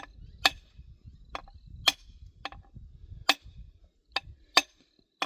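Hammer tapping around the threaded one-way valve of a Lorentz solar bore pump: about nine sharp metallic taps at uneven spacing, with a faint low rumble of handling under the first few. The taps are meant to free the thread so the valve can be undone with hand tools.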